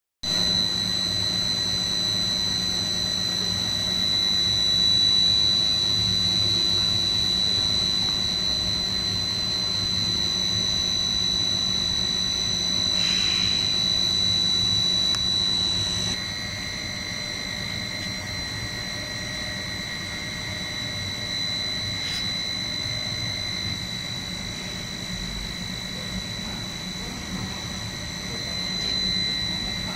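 Twin-screw snack pellet extrusion line running: a steady high-pitched whine over a low motor hum. About halfway through the sound shifts and gets a little quieter, with a lower whine joining in.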